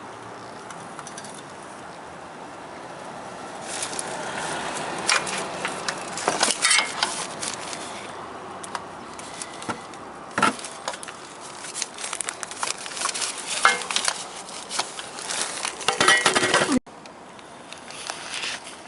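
Clamp-type oil filter wrench turning and loosening a car's spin-on oil filter: irregular metallic clicks, clatters and scrapes that begin a few seconds in, grow loudest near the end, then stop abruptly.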